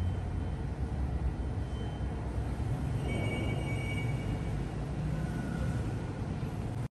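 Steady low rumble of a moving vehicle, with a few faint high-pitched whines around the middle.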